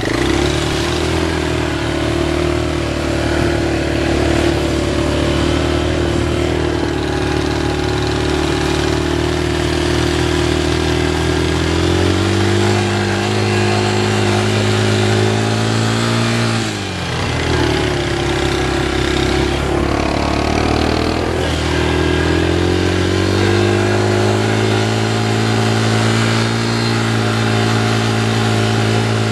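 ATV engine running under load while climbing a hill, its note holding steady and then revving higher about twelve seconds in. It drops briefly and climbs back a few seconds later, then rises again near the end.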